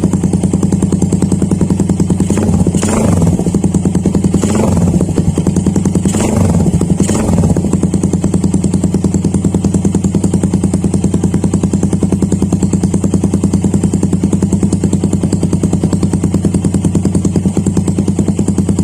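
Suzuki Raider 150 carburetted single-cylinder four-stroke engine idling through a freshly fitted Daeng Sai 4 replica exhaust pipe during a sound check for exhaust leaks. It is blipped three times in the first half, each a quick rise and fall in pitch, then settles back to a steady idle.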